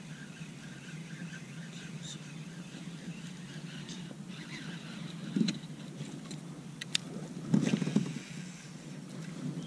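Baitcasting rod and reel being handled from a kayak: the reel is wound in, then sharp clicks and a louder brief rush about three quarters of the way through as a cast is made, over a steady low rumble.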